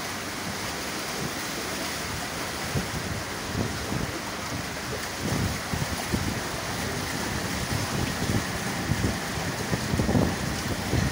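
Floodwater churning and splashing around a train moving through water over a submerged track, with wind buffeting the microphone; it grows a little louder near the end.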